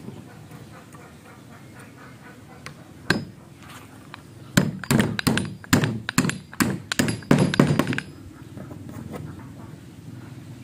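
Hammer driving a small wooden locking wedge into a timber scarf joint: one knock about three seconds in, then a quick run of about a dozen sharp knocks from about four and a half to eight seconds in.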